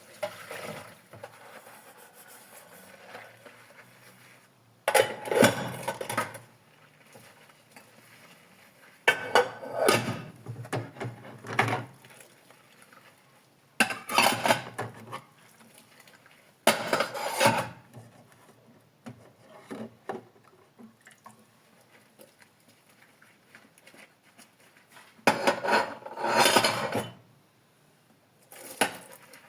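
Dishes and cutlery being washed by hand: several one-to-three-second bursts of clattering and rinsing, with quieter handling in between.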